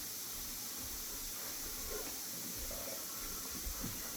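Sandpaper rubbed by hand over a painted rail, giving a steady hiss.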